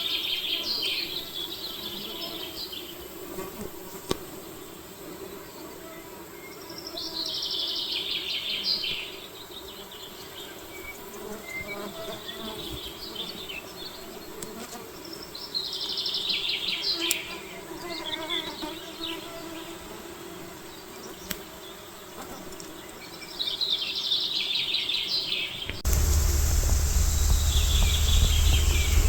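A songbird repeating a short, fast trilled song phrase of two to three seconds, four times, over the steady buzz of insects. Near the end a steady rumble with hiss cuts in suddenly and becomes the loudest sound.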